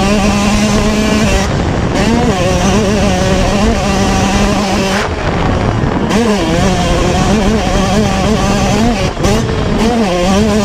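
Yamaha YZ125 single-cylinder two-stroke motocross engine from on board the bike, ridden hard at high revs. The pitch holds steady for long stretches and dips briefly about two, five and nine and a half seconds in before climbing back.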